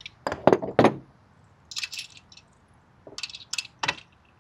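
Stainless steel bolts, washers and nuts clinking as they are handled: three quick clinks in the first second, then scattered clinks about two seconds in and again near the end.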